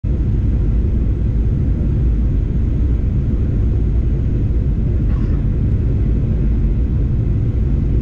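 Airplane in flight: a steady, low rumble of engine and airflow noise heard from inside the cabin.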